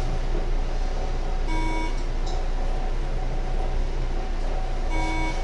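Two short electronic beeps about three and a half seconds apart, each about half a second long and made of several tones sounding together, over a steady low hum.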